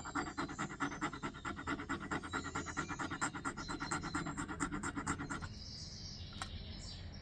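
Metal earring scraped rapidly back and forth on a black touchstone, about seven strokes a second, laying down a streak for acid testing. The scraping stops about five and a half seconds in.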